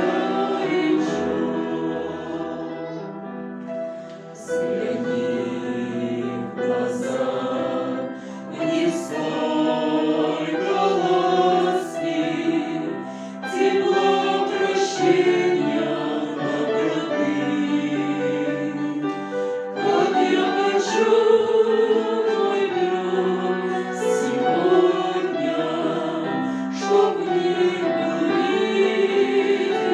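A choir singing in several parts: held, changing chords with the words' consonants clearly heard.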